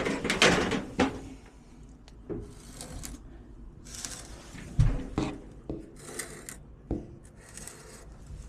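Handling noises from shifting a toolbox into place: a few sharp knocks and several short scraping rubs.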